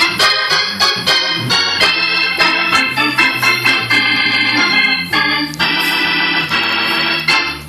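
Hammond organ played live: a fast jazz-blues solo of short stabbed chords and runs, each note starting sharply.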